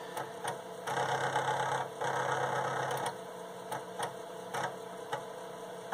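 Intertec Superbrain floppy disk drive at work: the drive whirs for about two seconds with light ticking of the head stepping, over the steady hum of the computer. This is the drive loading the assembler and the next source file as the build moves on.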